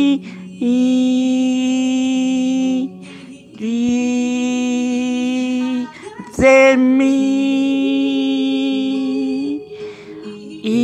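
A man singing a Spanish worship song in long held notes, three sustained phrases of about two to three seconds each with short breaks for breath between them, sung right into a small microphone.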